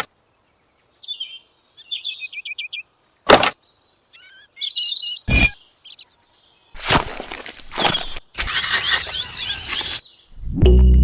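Birds chirping in short quick calls, broken by two sharp clicks. A rough, noisy scraping stretch follows, and music with a steady bass begins near the end.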